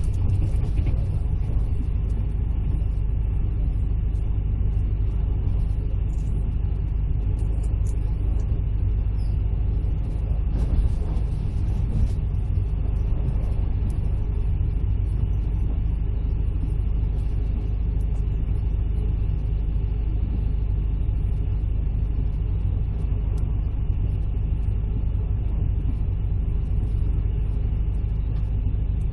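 Steady low rumble of a moving vehicle heard from inside while it travels along at an even speed, with a few faint clicks and rattles.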